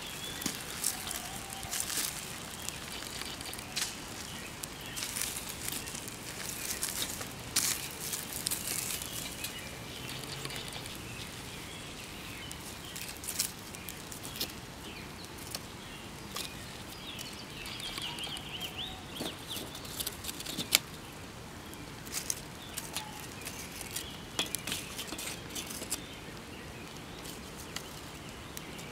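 Whole Vidalia onions sizzling and crackling on hot charcoal briquettes: a steady hiss broken by many irregular sharp clicks and pops.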